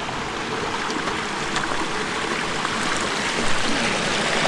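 Mountain stream running over rocks: a steady rush of water that grows slightly louder.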